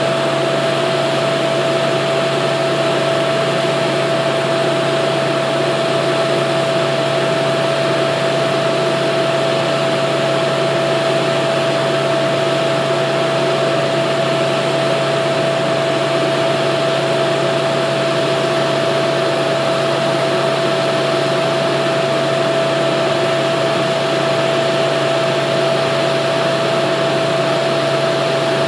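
A steady machine-like drone: an even rushing noise with a constant mid-pitched hum through it, never changing in pitch or level.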